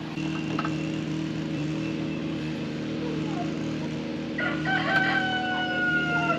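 A rooster crowing once, a long call of about two seconds starting about four seconds in, over a steady low hum.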